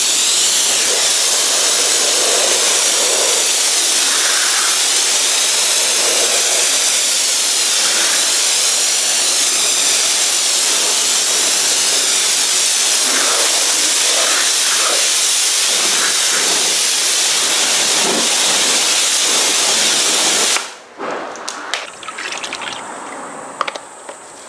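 Karcher K3 Silent pressure washer spraying water at the car, a loud, steady hiss that cuts off suddenly about twenty seconds in. Faint clicks and drips follow.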